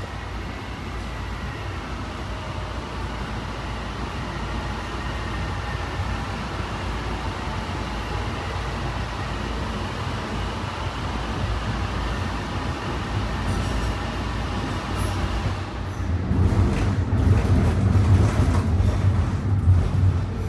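Honolulu Skyline metro train running, heard from inside the front car: a steady low rumble with faint motor tones. Over the last few seconds it grows louder, with scattered rattling clicks.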